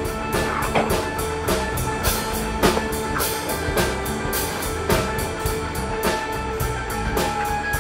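Improvised instrumental band music, with a drum kit keeping a quick, steady beat under held instrument notes.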